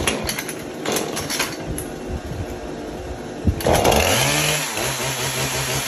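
Husqvarna 440 two-stroke chainsaw being pull-started: a few rasping pulls of the starter cord, then about three and a half seconds in the engine catches, its pitch rises and it runs steadily before cutting out near the end.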